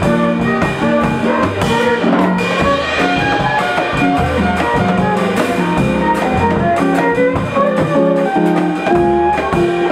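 Live instrumental music: a bowed violin playing a melody of short notes over an archtop electric guitar's accompaniment, with low bass notes underneath.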